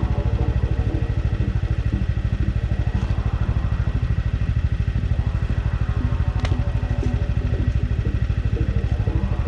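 Snowmobile engine idling steadily with an even, low pulse. A sharp click comes about six and a half seconds in.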